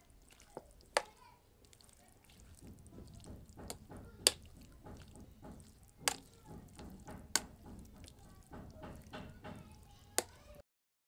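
A spoon stirring yogurt-dressed chaat of chickpeas, beans and potatoes in a plate. The wet squelch of the mix starts about two seconds in, with several sharp clinks of the spoon against the plate.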